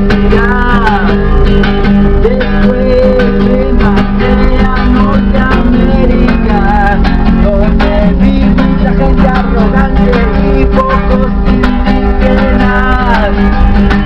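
Nylon-string classical guitar strummed in a steady rhythm, with a man singing in Spanish over it; his voice holds a word at the start and comes in again near the end.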